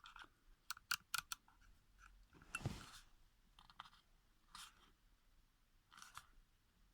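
Faint clicks from turning the diesel heater controller's dial, several in quick succession in the first second or so, then a few soft handling rustles. No heater sound is heard.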